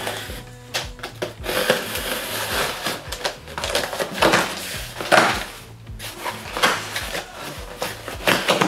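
A delivered package being opened by hand: irregular bursts of rustling, scraping and tearing of packaging, over background music.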